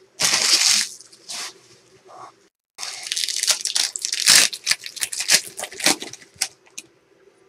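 A trading-card pack wrapper torn open with one sharp rip, followed by a few seconds of crinkling wrapper and rustling, clicking handling of the cards.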